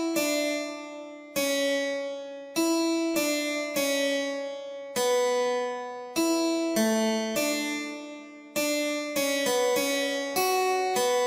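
Intro music on a keyboard instrument: chords struck one after another, about one a second, each left to ring and fade before the next.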